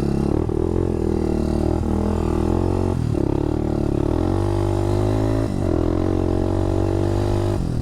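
Honda dirt bike engine running under throttle while riding, its pitch shifting a few times.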